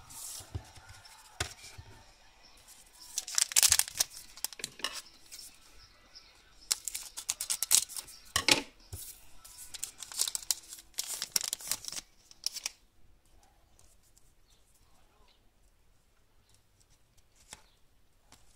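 The wrapper of a 2013 Panini Totally Certified football card pack crinkling and being torn open by hand, in loud bursts of rustling and ripping through the first two thirds. Then only faint handling of the cards.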